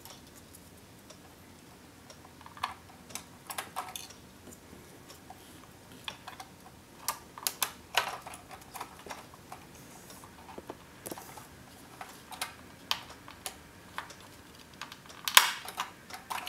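Irregular plastic clicks and taps as a cuckoo clock's small plastic window door and its lever are handled and snapped into place, the loudest click about fifteen seconds in.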